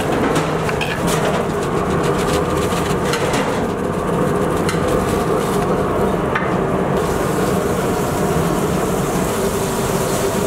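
Steady roar of a commercial kitchen's stoves and ventilation, with a low mechanical hum. A few light knocks come through in the first half.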